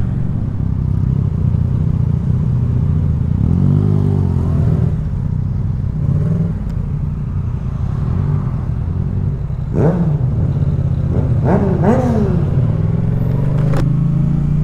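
Motorcycle engine running while riding, heard through a helmet microphone. The engine pitch rises and falls a few times as the throttle changes.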